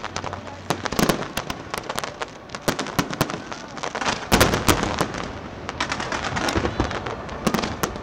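Aerial fireworks bursting in a rapid, irregular series of bangs and crackles. The heaviest bursts come about a second in and again just past the middle.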